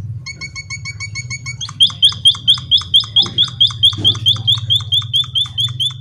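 A caged munia (emprit kaji) singing a rapid train of repeated notes. It starts with a run of softer whistled notes, then about two seconds in switches to loud, down-slurred chirps at about six a second. A steady low hum sits underneath.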